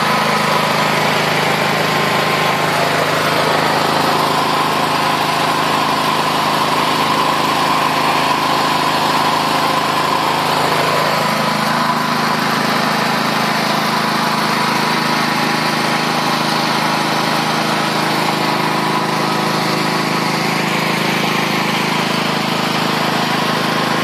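Elitech БЭС 6500 ЕМ petrol generator running at a steady, even speed.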